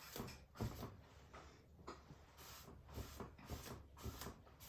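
Faint swishes of a paintbrush stroking acrylic paint across canvas, a quick irregular series of strokes as the colour is blended in.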